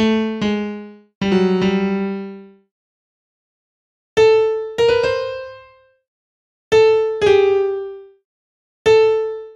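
Single notes of a software piano sounding one or two at a time, each dying away, with pauses of a second or two between. These are the preview notes heard as they are tapped into a phone app's piano roll to build a melody.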